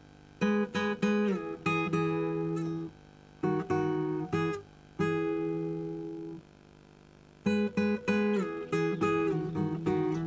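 Acoustic guitar music: short phrases of plucked notes and chords that ring and fade, separated by brief pauses.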